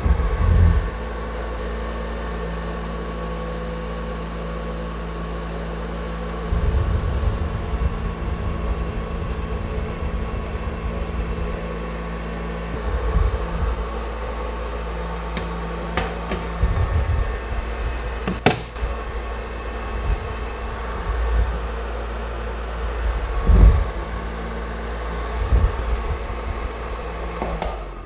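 Small desktop evaporative air cooler's fan running at its strongest speed: a steady motor hum with paper strips fluttering in the airflow. Irregular low rumbling comes and goes, with a few light clicks.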